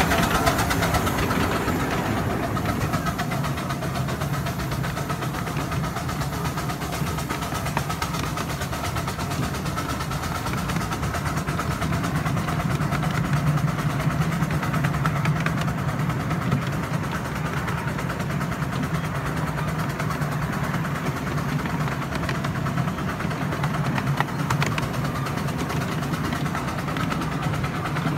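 Miniature steam train on 7¼-inch gauge track running steadily, with a continuous mechanical running noise and a fine rapid clatter throughout.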